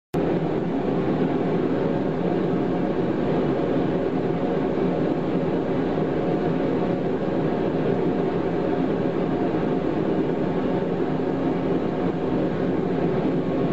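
Forge running in the workshop: a constant, steady rushing noise with a faint hum, unchanging throughout.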